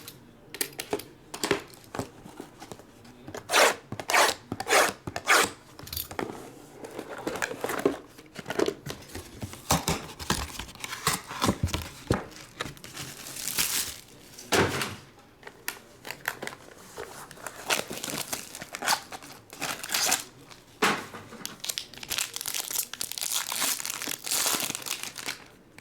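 Sealed baseball card box and pack wrappers being torn open and crinkled by hand, in irregular bursts of tearing and rustling with cards being handled.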